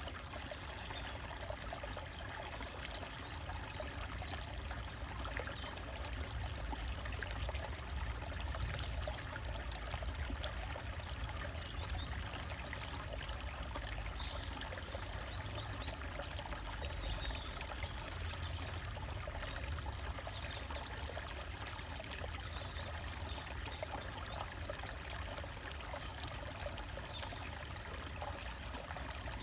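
Small stream trickling and splashing over rocks, steady.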